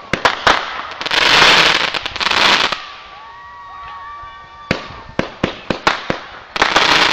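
Consumer fireworks going off: a run of sharp pops and bangs as shots launch and burst, with two long stretches of dense crackling hiss, about a second in and again near the end.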